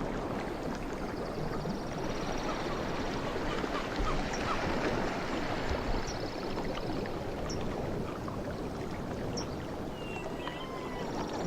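Sea waves washing in a lull between louder swells, with birds chirping and giving short high trills over the surf; a brief whistled bird call comes near the end.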